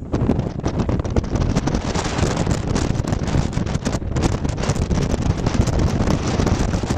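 Wind buffeting the camera microphone on a moving tour boat: a loud, gusty rush with a low rumble from the boat underneath.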